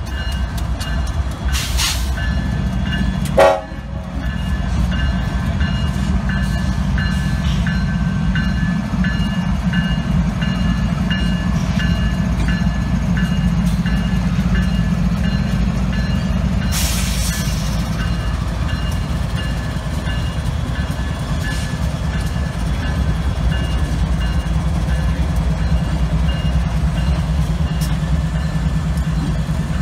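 Diesel locomotives' engines running, a steady low rumble throughout. About three and a half seconds in there is a short, loud sound that falls in pitch, and around the middle a brief hiss.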